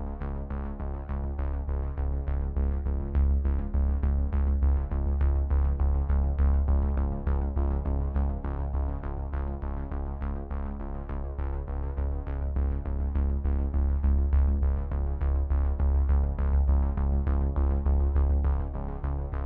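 Electronic background music with a steady beat over a held low bass.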